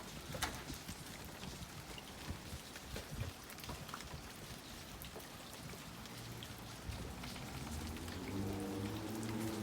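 Rain falling steadily, pattering on surfaces with many separate drop hits. A low droning hum comes in about six seconds in and grows louder near the end.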